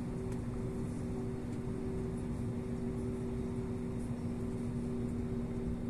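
Airliner cabin noise while the plane taxis: a steady engine hum with two constant tones over a low rumble, heard from inside the cabin.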